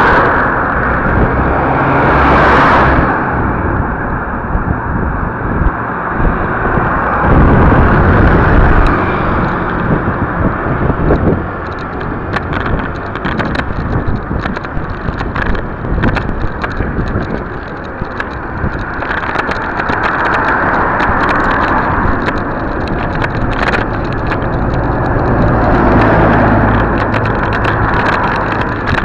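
Wind rushing over a small camera's microphone while riding along a bike path, with road noise under it. From about twelve seconds in there are frequent sharp clicks and rattles.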